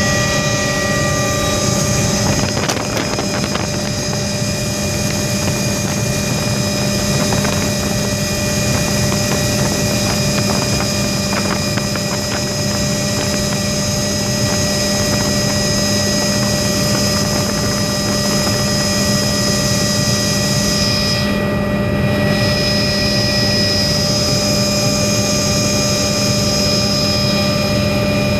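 Helicopter in flight heard from inside the cabin: the engine and rotor make a loud, steady noise with a low hum and a high whine. The high whine briefly drops out about three quarters of the way through.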